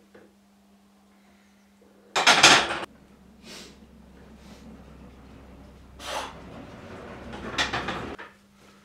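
A loaded barbell and weight plates scraping and clanking during a bench press: a loud scrape about two seconds in, then several shorter ones, the last near the end.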